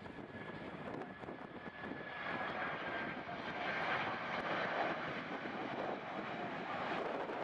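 Engines of an American Airlines Boeing 767 jet airliner on final approach with its landing gear down, passing overhead. A faint high whine is heard at first, then the engine noise swells from about two seconds in and is loudest around the middle.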